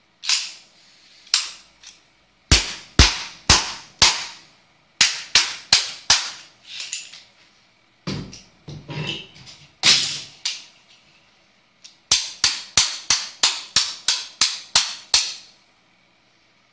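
A stainless-steel mail arm guard on a forearm struck over and over, each blow a sharp crack. The blows come in runs with short pauses between them, the last run quick and even at about four a second.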